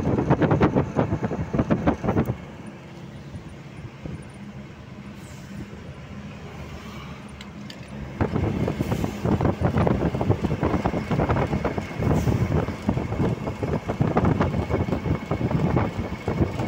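Wind buffeting the microphone at the open cab window of a moving trailer truck, over the drone of its engine and road noise. About two seconds in the buffeting drops away for several seconds, leaving a steadier low engine drone, then comes back loud near the middle and runs on.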